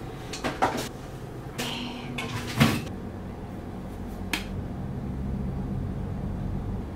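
Plastic bottles and containers handled in an open refrigerator: a few clicks and knocks with a rustle, the loudest knock about two and a half seconds in. A plastic flip-top cap on a syrup squeeze bottle snaps open a little past four seconds, over a low steady hum.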